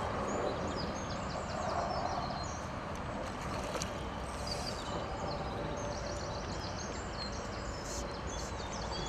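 Outdoor ambience: small birds singing in short repeated phrases over a steady low rumble of background noise.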